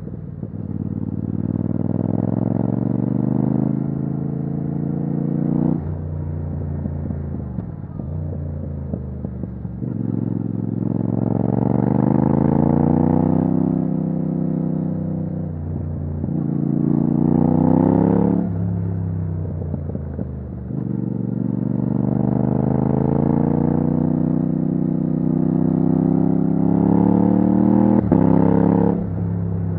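Yamaha MT-07's 689 cc parallel-twin through a straight-through titanium Akrapovic exhaust with no dB killer, accelerating hard through the gears. The revs climb and then drop sharply at each quickshifted upshift, several times over, with easing off between runs.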